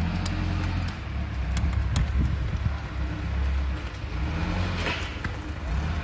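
Steady low rumble of a car driving, heard from inside the cabin, with a few light ticks.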